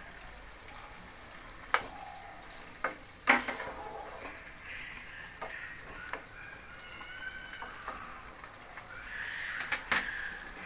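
A thick prawn and potato curry simmering and sizzling in a non-stick kadai while a wooden spatula stirs it, with a few sharp knocks of the spatula against the pan in the first few seconds.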